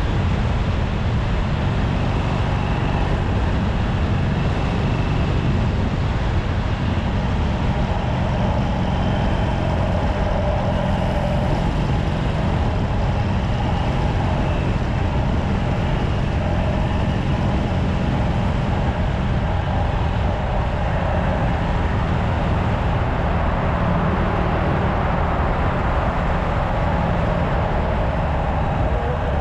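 Harley-Davidson Sportster SuperLow 883's air-cooled V-twin running through its stock exhaust while the bike is ridden. It holds a steady pace, with no sharp revs or shifts standing out.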